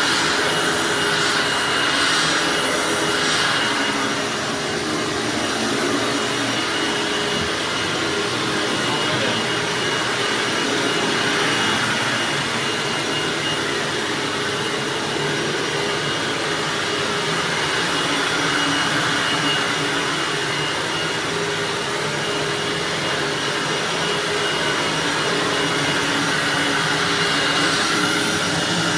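Hoover WindTunnel bagged self-propelled upright vacuum running over carpet: a steady motor rush with a thin high whine, swelling and easing slightly now and then.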